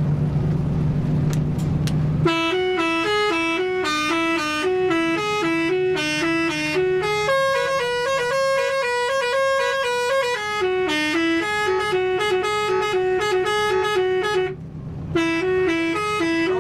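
Bus engine and road noise for about two seconds, then a telolet horn, a bank of tuned air horns, plays a quick melody of alternating notes that switch several times a second. A higher pair of notes alternates in the middle, and there is a short break near the end.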